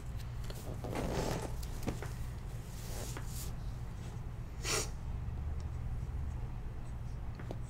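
Quiet room tone with a steady low hum, a few faint rustles and one short hiss a little past the middle.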